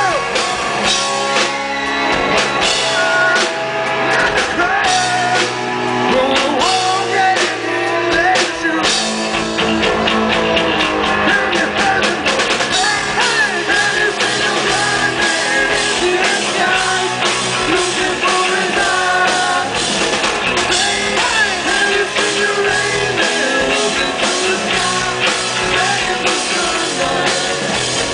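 Hard rock band playing live: a man sings over electric guitar and a drum kit keeping a steady, driving beat.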